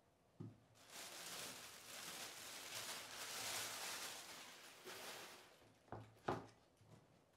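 Thin plastic carrier bag crinkling and rustling for several seconds as a takeaway food container is pulled out of it, then two light knocks on the desk near the end.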